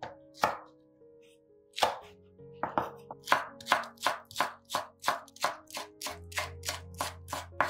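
Chef's knife slicing a green onion on a wooden cutting board: a couple of separate knocks, then steady quick chopping at about three to four cuts a second from a third of the way in, over background music.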